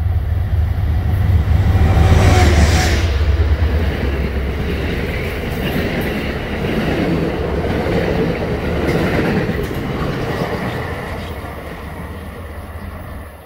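Amtrak passenger train passing through a station at speed without stopping. The locomotive's engine is loudest as it goes by in the first few seconds, then the coaches' wheels roll past on the rails, fading near the end as the train moves away.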